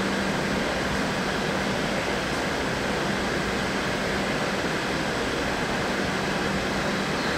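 DD16 diesel locomotive's engine running steadily at a distance, a constant hum with a faint low drone over it.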